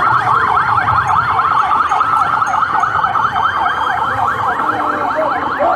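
Police vehicle siren sounding a fast yelp, about five rapid pitch sweeps a second, held steady.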